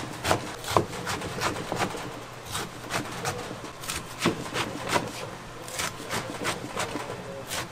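Irregular clatter of dishes and utensils: sharp knocks and clinks, two or three a second, over a steady low hum.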